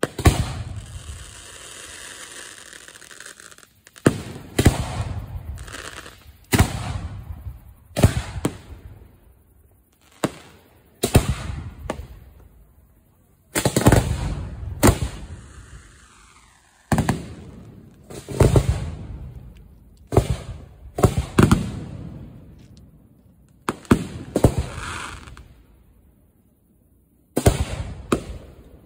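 Aerial firework shells fired from mortar racks close by: a sharp bang every second or two, each followed by an echoing tail. After the first bang a crackling hiss runs for a few seconds, and a falling whistle sounds about halfway through.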